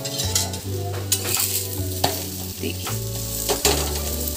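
Paratha frying in ghee on a hot iron tawa, a steady sizzle, while a flat steel spatula presses and scrapes it, giving several sharp scrapes and taps.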